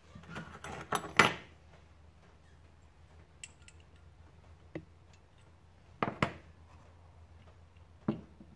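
Small metal carburetor parts and hand tools clinking and knocking on a workbench during reassembly. A quick run of knocks in the first second or so, the loudest, then scattered single clicks, a double knock about six seconds in and one more near the end.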